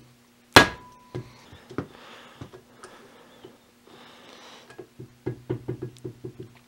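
A hammer strikes the back of a Craftsman hand impact driver once, a sharp metal blow with a brief ring, about half a second in. The blow shock-turns a rust-seized screw. Lighter knocks follow, then a quick run of small metallic clicks and taps near the end.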